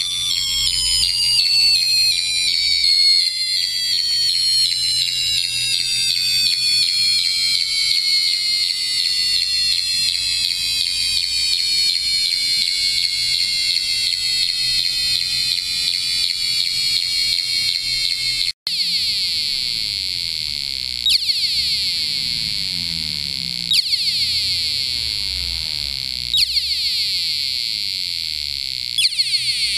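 Microcontroller-driven piezo speaker sounding modulated test tones: a shrill, buzzy electronic tone whose pitch sinks slowly in small steps, then after a brief cut about two-thirds of the way in, a steady high-pitched tone broken by a short click about every two and a half seconds.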